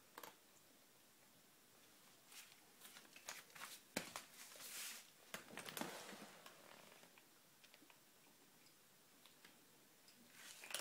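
Domestic cats crunching dry kibble: faint, scattered crunches and clicks, with one sharper click about four seconds in.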